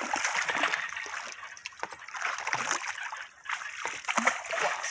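Live trout splashing and thrashing at the water's surface as they slide off a net into a lake, in a string of irregular splashes.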